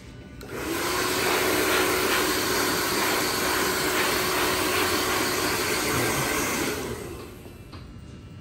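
Hair dryer blowing, switched on about half a second in and running steadily with a faint hum under the rush of air, then winding down about seven seconds in.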